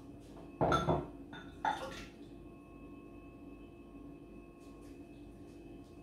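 A tin can and a utensil knocking and clinking against a bowl while fish is picked out of the can: a pair of knocks about a second in and a lighter one shortly after. A faint steady hum runs underneath.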